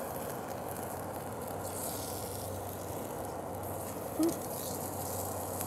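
Steaks searing on a grill grate over flaring charcoal flames: a steady hiss and sizzle, with one short blip about four seconds in.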